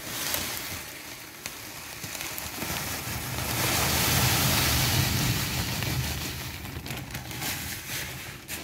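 Granulated sugar poured from a cup onto a plate of crumbled roti: a continuous hiss, loudest in the middle and easing off near the end.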